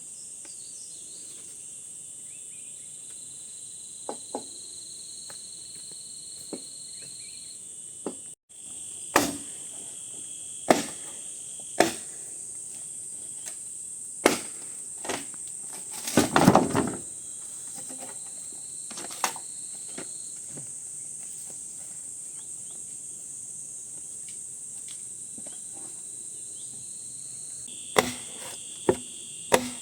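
Steady high-pitched chorus of insects such as crickets, with a scattering of sharp knocks from about nine seconds in and a quick cluster of knocks just past halfway.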